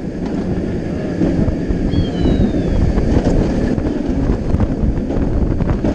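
Wind rushing over a chest-mounted GoPro as the Montu inverted roller coaster's train runs through its layout at speed, with the train's rumble under it.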